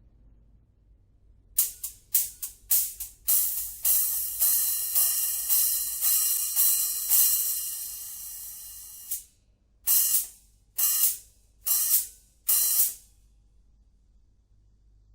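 Kingdo cymbal struck with a stick. A few quick hits come first, then strokes about twice a second build a sustained ringing wash that fades and is cut off. Four short, choked hits follow.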